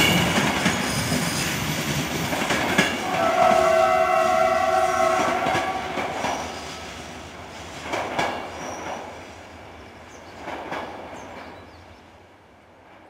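Passenger train receding on its train of coaches, wheel and rail noise fading steadily into the distance with a few faint clacks over rail joints. About three seconds in, a train horn sounds once for about two and a half seconds as a steady chord of several tones.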